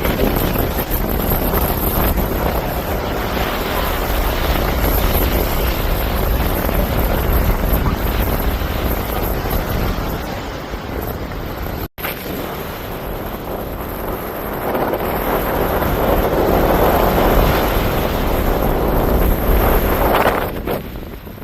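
Wind buffeting the microphone over the rush of the sea, a steady noisy roar with a heavy low rumble that swells louder near the end. A brief dropout cuts it off for an instant about twelve seconds in.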